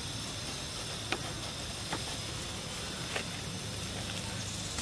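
Steady outdoor background hiss with three short, sharp clicks or snaps spread over a few seconds.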